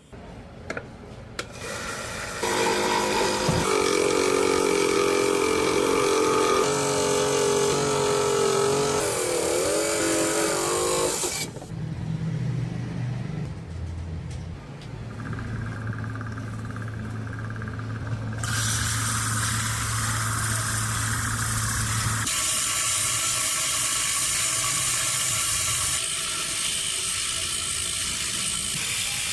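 Workshop power tools running in a string of short clips with abrupt cuts: a motor whine that wavers in pitch before cutting off, then a steady low hum, then a steady hiss.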